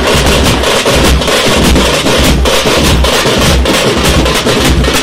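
A street drum band playing fast and loud. Large bass drums on wheeled stands are beaten with curved sticks, giving deep thumps, under dense, rapid strokes on tamate frame drums.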